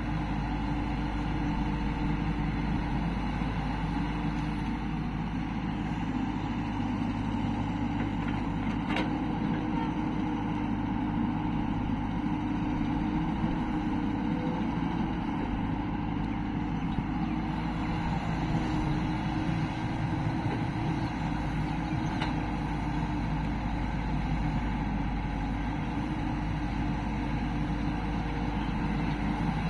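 Diesel engine of a Hyundai crawler excavator running steadily under load as it digs mud and swings its bucket to load a trolley.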